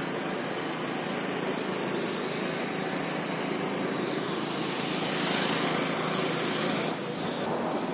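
Jet aircraft engine noise: a steady rush that swells a little partway through, then changes abruptly near the end.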